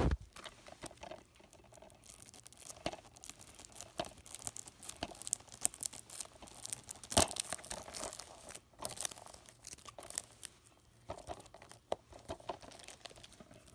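Plastic packaging crinkling and tearing as hands work at it, in uneven runs of crackles, loudest about halfway through. A dull thump at the very start.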